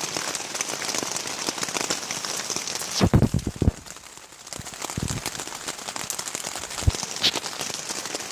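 Steady rain, with many small drops ticking on a surface. A few louder low thumps come about three seconds in and again around five and seven seconds.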